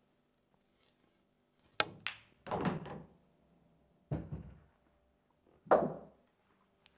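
An 8-ball pool shot: the cue tip strikes the cue ball with a sharp click, the cue ball clicks into the red object ball a moment later, and the red drops into the corner pocket with a dull thud. Two more dull thuds follow as the balls run on, the last as the cue ball comes off the side cushion near the end.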